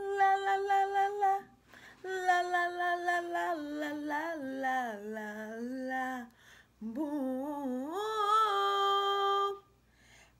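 A woman singing a cappella without words in three phrases: a held note, a run that steps down in pitch, then a rising run that ends on a long held note.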